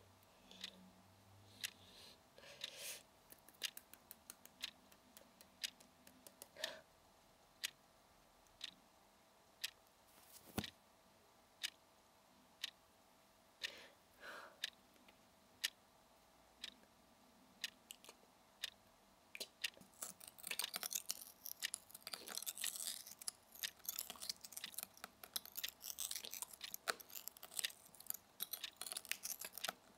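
Slow, even ticking about once a second, like a clock, with a few soft wet mouth sounds between the ticks. About two-thirds of the way in, a dense crackling crunch of chewing sets in and continues over the ticking.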